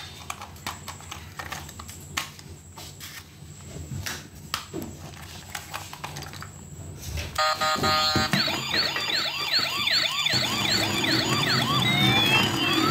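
Light plastic clicks and knocks as the toy police car is handled, then about seven seconds in its electronic siren starts: a short beep, then a quick repeating wail about three times a second, joined near the end by longer rising and falling siren tones.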